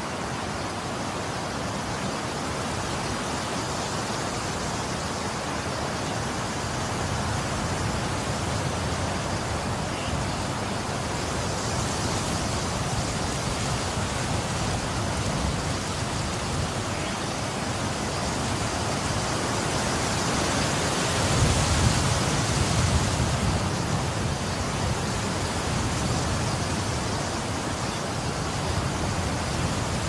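Wind blowing: a continuous rushing noise that swells and eases in gusts. The strongest gust comes about two thirds of the way through and carries a deeper rumble.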